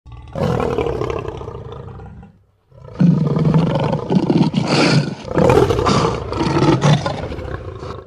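Lion roar sound effect: one roar that fades away over about two seconds, then after a short break a longer, louder roar that swells and eases several times before cutting off.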